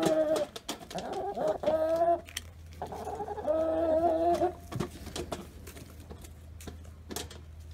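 Hungry domestic hens jostling at a feeder, giving several long drawn-out calls in the first four and a half seconds. After that it goes quieter, with scattered sharp taps.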